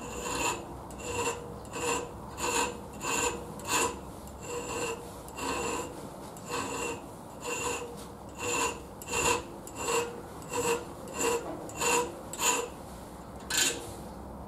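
Small needle file stroking across the steel tip of a vintage flat-blade screwdriver, dressing the blade: a short rasping stroke about one and a half times a second, each with a faint metallic ring.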